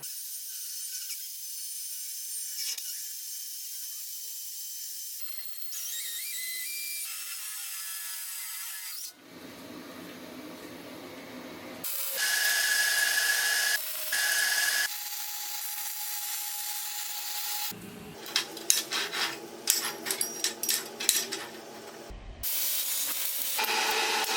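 A run of workshop power-tool sounds that change abruptly several times. A high-pitched tool runs steadily in the middle, and a string of sharp clicks and knocks comes near the end.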